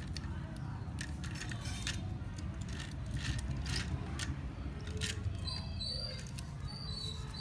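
Light clicks and taps of small plastic toy trucks being handled and set down on concrete and sand, scattered irregularly over a steady low rumble. A few faint high tones come in near the end.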